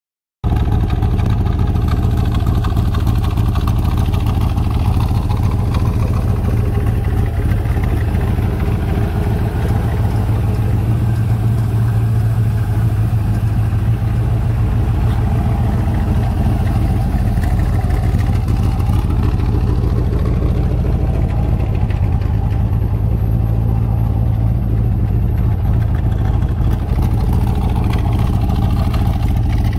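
Chevrolet 350 cubic-inch small-block V8 with electronic fuel injection, in a 1963 Corvette Sting Ray convertible, idling steadily.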